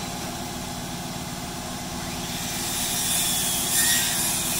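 An engine running steadily with a fast, even low beat, and a short hissing whir about three seconds in.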